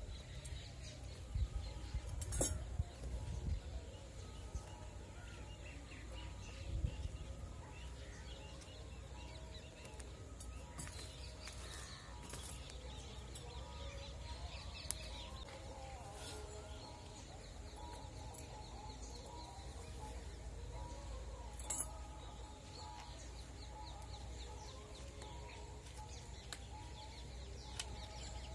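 Birds calling over a low steady rumble, with a few sharp clicks of metal tongs against a clay chulha where corn cobs are roasting on the coals.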